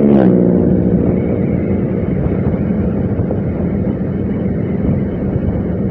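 Motorcycle under way at a steady pace: a steady engine hum with road and wind noise.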